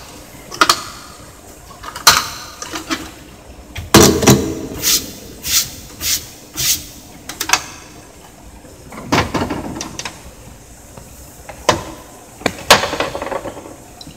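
Hard plastic clicks and knocks from handling a Canon IP2770 inkjet printer and opening its top cover. A loud knock comes about four seconds in, followed by a run of sharp clicks, then a longer scraping slide around nine seconds and a couple more clicks near the end.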